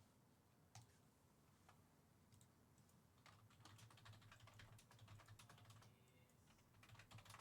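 Near silence, with faint, irregular small clicks and taps scattered through it and a few more close together near the end.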